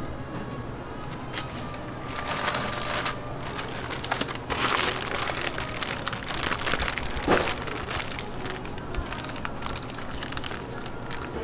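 Paper wrapper crinkling in uneven bursts as it is folded by hand around a filled waffle.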